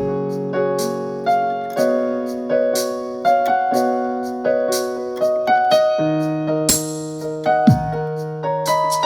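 Electronic keyboard in a piano voice, playing a melody of single notes over held chords, with a short falling swoop in the bass twice.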